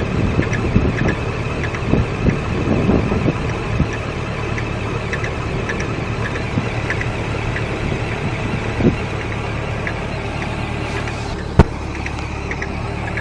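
Nissan 240SX engine running with a steady hum and a light, repeated ticking over it. One sharp, loud click comes about eleven and a half seconds in.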